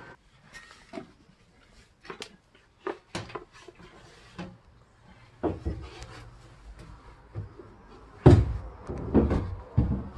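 Scattered knocks and clicks from handling a camera and moving about on a fibreglass boat, with a cluster of heavier thumps about eight seconds in.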